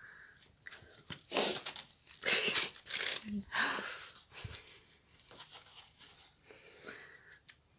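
Crinkling and rustling as a cat paws at a white crinkly toy on a fabric blanket, in a few short bursts, the loudest about a second and a half to three and a half seconds in, then fainter scuffles.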